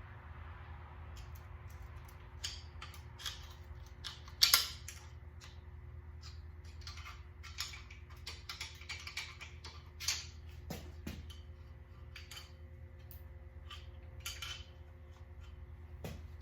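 Metal clinks, taps and knocks of hand tools on engine parts as a part is worked at by hand without a puller, with one sharp, louder clank about four and a half seconds in. A steady low hum runs underneath.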